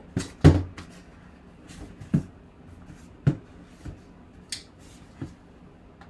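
A cardboard box being handled, turned over and set down on a table: a series of knocks and thumps, the loudest about half a second in, then scattered lighter taps and a brief scrape.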